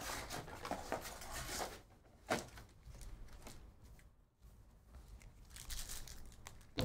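Trading card packs and their cardboard hobby box being handled: paper-and-foil rustling, a single sharp tap a little over two seconds in, and crinkling of a foil pack wrapper being peeled open near the end.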